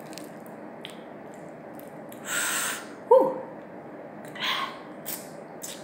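People eating hot-chili prawns by hand make two short breathy sounds, about two and four and a half seconds in. Just after three seconds comes a brief falling 'mm' from the throat, the loudest sound here, and a few small clicks come from the shells being peeled.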